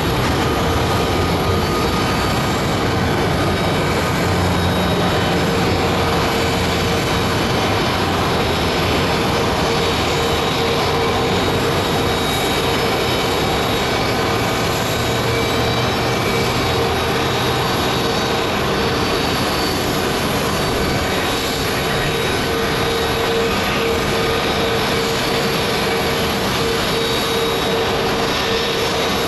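Embraer 175 regional jet being pushed back from the gate, making a steady jet whine: a constant tone over a continuous rushing noise.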